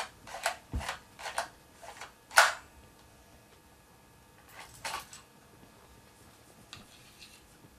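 A plastic View-Master viewer's lever is pushed down again and again, each stroke a sharp click as the reel advances to the next picture. A quick run of clicks comes in the first two and a half seconds, the loudest at the end of that run, then a few more clicks spaced out.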